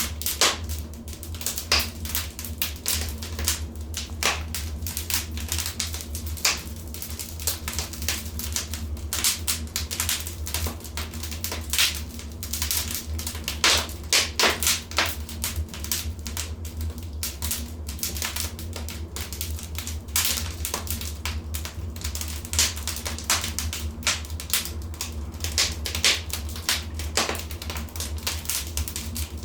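Wood fire in a fireplace crackling, with dense, irregular snaps and pops over a steady low rumble.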